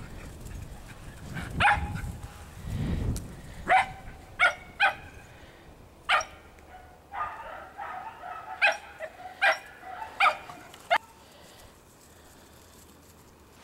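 Shetland sheepdog barking: about nine short, sharp, high-pitched barks, some in quick pairs, with a stretch of overlapping yapping in the middle.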